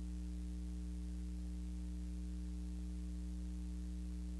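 Steady electrical hum with a low background hiss, unchanging throughout; no other sound.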